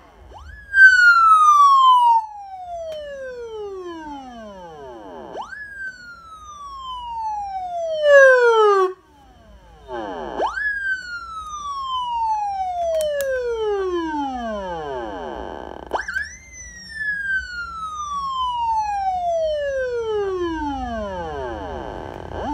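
Electronic '113' police-style siren sounding. Each cycle jumps quickly to a high pitch and then glides slowly down over about five seconds, repeating four times, with a brief, louder falling tone about eight seconds in.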